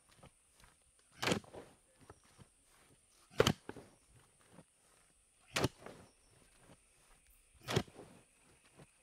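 Four heavy thuds at an even pace, about two seconds apart, each followed by a few lighter knocks.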